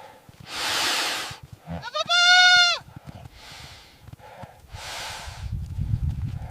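A sheep bleats once, a loud wavering call of under a second, about two seconds in. Short bursts of hiss come before and after it, with a low rumble near the end.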